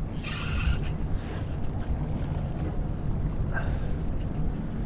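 Steady wind rumble on a head-mounted action camera's microphone, with choppy water lapping against a kayak hull.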